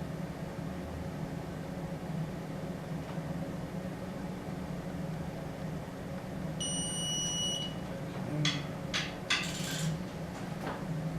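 A single high electronic beep about a second long over a steady low hum, followed a little later by a few sharp clicks and rattles and a knock.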